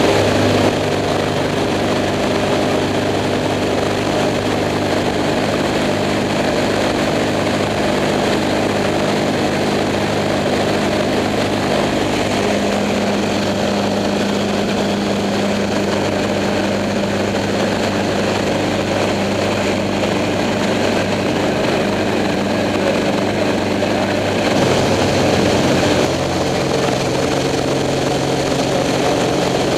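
Engine and propeller of a Sonex light kit airplane droning steadily in cruise, heard from inside the cockpit, with the tone shifting slightly a couple of times.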